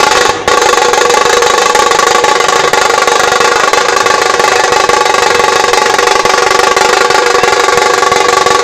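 A dhol-tasha ensemble playing: many large barrel dhols and small kettle-shaped tashas beaten with sticks. After a brief break about half a second in, they go into a dense, continuous rolling rhythm, very loud and overdriven.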